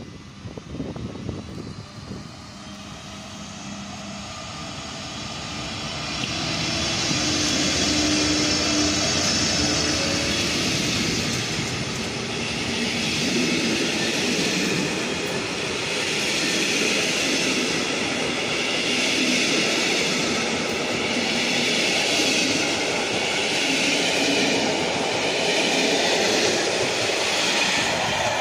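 Electric locomotive and its train of passenger coaches passing close: the sound builds as the locomotive draws near, then holds as a loud, steady wheel-on-rail rush that swells every two to three seconds as the coaches go by.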